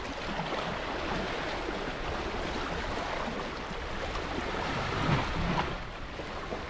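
Sea waves washing against granite shore rocks: a steady wash, rising briefly a little after five seconds in.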